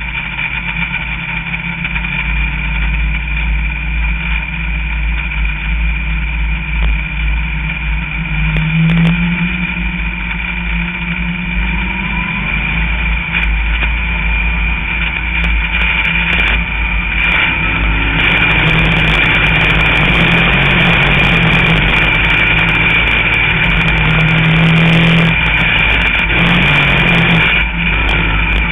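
Sportsman dirt modified's V8 engine heard from inside the cockpit while racing in a pack, with the revs rising about nine seconds in. From about seventeen seconds on the engine runs louder and harder under power.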